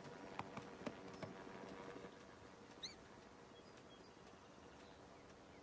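Near silence: soft, light tapping of a cartoon pony's slow hoofsteps in the first two seconds, then a single short rising chirp about three seconds in.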